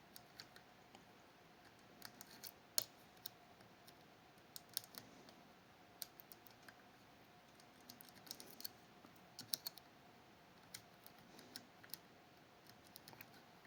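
Faint, irregular metallic clicks and ticks of lock picks working the levers of a Fichet 484 lever sidebar lock, in scattered little clusters over a faint steady hum.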